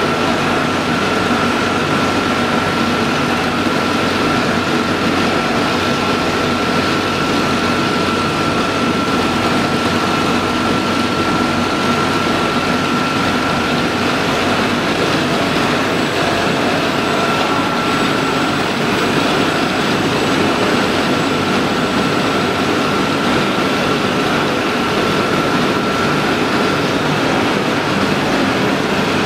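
Steady industrial machinery noise: a continuous drone with a constant high whine running through it.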